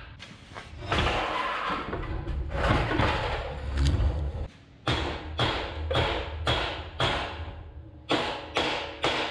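Hammer blows on a steel pipe cattle gate frame, ringing sharply about twice a second through the second half. Before that comes a stretch of heavier clattering and knocking as the gate frame is shifted.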